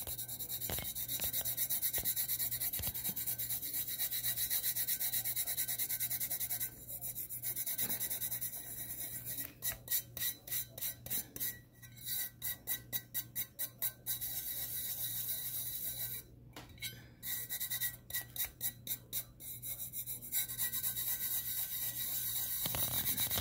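Fingertips rubbing loose holographic glitter into a glue-coated tumbler: a dry, scratchy brushing that flattens the glitter onto the cup. Partway through, the rubbing turns into runs of quick back-and-forth strokes, about three a second.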